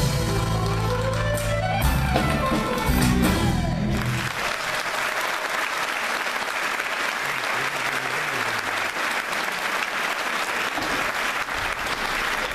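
A live Irish band with fiddle and guitar plays the final bars of a tune, which ends sharply about four seconds in. An audience then applauds steadily.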